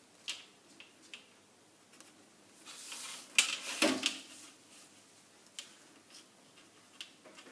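A metal ruler and tape measure are handled on a sheet of pattern paper: scattered light taps and clicks, and a short rustling slide with a few sharp clacks a little past the middle.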